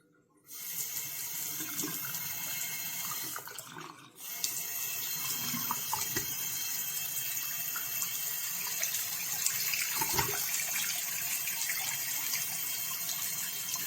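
Water running from a waterfall-spout single-lever bathroom faucet into a sink as a steady hiss. It starts about half a second in, falls off briefly about four seconds in, then flows again.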